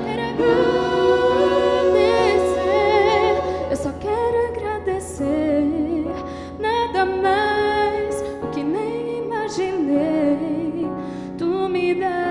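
Vocal group singing a slow gospel song with long, wavering held notes, over sustained keyboard chords.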